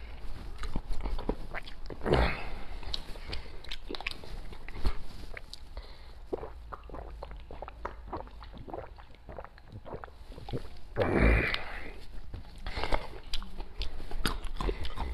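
Close-up mouth sounds of a man biting and chewing a braised chicken head: many short wet clicks and crunches, with two louder rushes about 2 and 11 seconds in.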